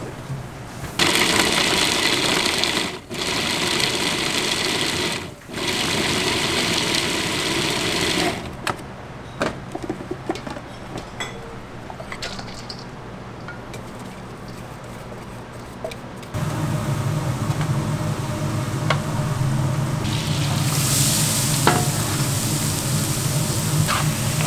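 Small electric food processor running for about seven seconds as it chops carrot slices, with two brief stops. Then scattered clinks and scraping as the minced carrot is tipped and scraped out of its plastic bowl. From about two-thirds of the way in, the minced carrot is stir-fried in a pan, with a steady sizzle and the scrape of a spatula.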